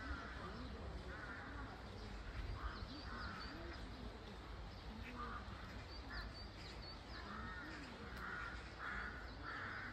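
Crows cawing repeatedly in short harsh calls, with a few faint high chirps of small birds and a low rumble of wind on the microphone underneath.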